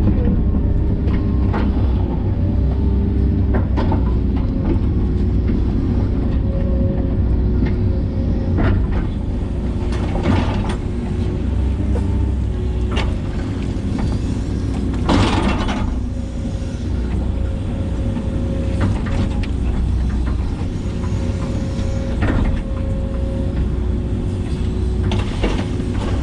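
Hitachi 130LCN excavator's diesel engine running steadily under working load, with several sharp clanks and knocks, the loudest about ten and fifteen seconds in.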